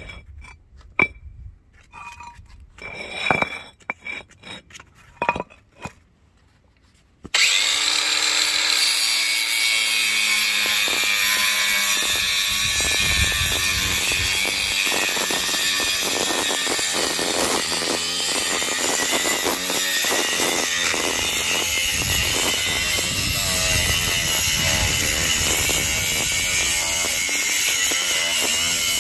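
A few knocks as paving stones are handled and set in place, then about seven seconds in a Ryobi angle grinder starts suddenly and runs steadily under load, its cut-off wheel grinding through the stacked paving stones.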